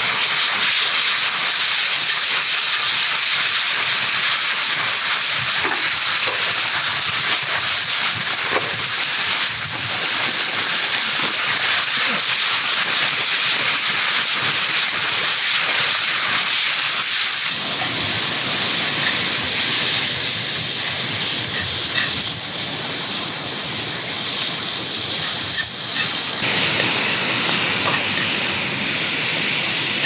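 Meat in sauce sizzling in an iron frying pan over a campfire, a steady loud hiss. About halfway through, bean sprouts are added and the sizzle turns fuller and less bright.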